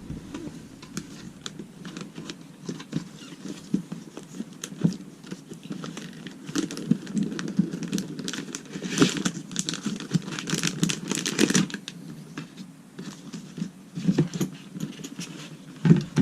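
Motherboard packaging being handled and unpacked: crinkling and rustling with scattered clicks and taps, busiest in the middle.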